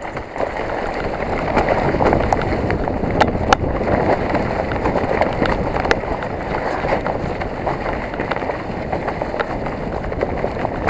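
Specialized Enduro 29 mountain bike descending a rough trail at speed: steady rolling tyre noise with scattered sharp clicks and rattles from the bike, and wind on the microphone.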